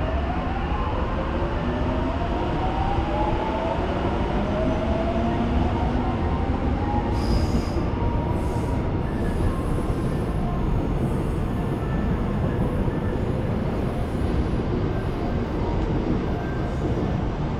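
Seoul Subway electric train running on the rails with a steady rumble. For the first several seconds its motor whine rises in pitch as it gathers speed.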